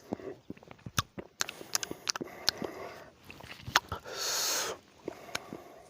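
Close-up eating sounds of lemon being chewed: scattered wet mouth clicks and smacks, with a short hissing sound about four seconds in.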